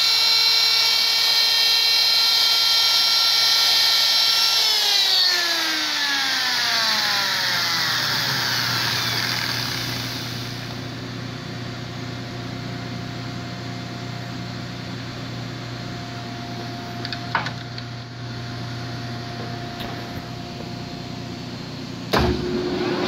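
Die grinder used as a router with a V-groove bit, running with a steady high whine, then switched off about five seconds in and winding down in pitch over a few seconds. A quieter steady low machine hum carries on afterwards, with a couple of knocks near the end.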